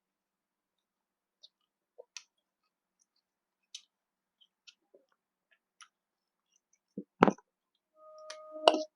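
Eating sounds: scattered faint clicks and clinks of utensils and mouth, then a louder knock about seven seconds in and a short steady tone near the end.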